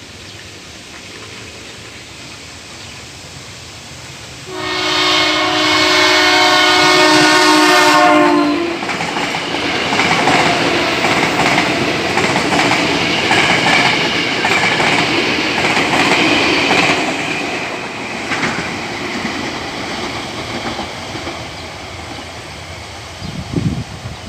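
KRL Commuter Line electric train sounding its horn in one blast of about four seconds, then running past loudly for about ten seconds before fading away. A short thump comes near the end.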